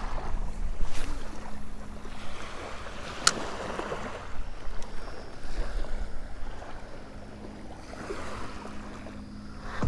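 Wind buffeting the microphone over small waves lapping at the shoreline, with a couple of sharp clicks, about one and three seconds in.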